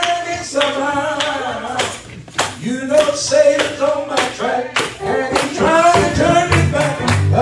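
A man singing a gospel song, with steady rhythmic hand clapping. Low bass notes come in about six seconds in.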